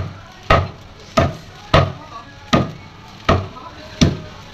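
A large knife chopping a whole barramundi crosswise into steaks, the blade cutting through the backbone and striking a wooden chopping block. The chops are sharp and come at a steady pace, about one every two-thirds of a second, seven in all.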